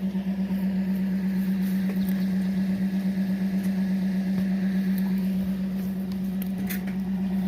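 Car engine running with a steady, even hum.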